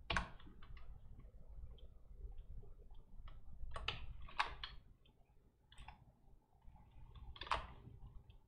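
Scattered faint clicks and key taps from a computer keyboard and mouse during work at a computer, irregularly spaced, with a longer, louder one near the end, over a faint low hum.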